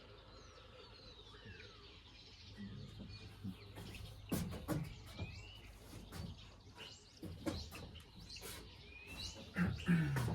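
Wild birds calling and chirping, with short gliding whistles. From about four seconds in, a series of sharp clicks and knocks joins them.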